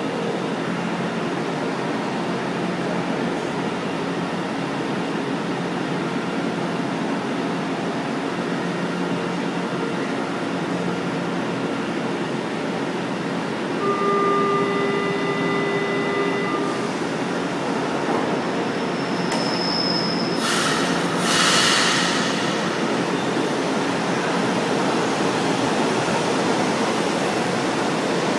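Metro train running along the station platform, a steady rumble of wheels on rail and running gear. About halfway through, a pitched whine rises out of the rumble for a couple of seconds, and brief high wheel squeals follow a few seconds later.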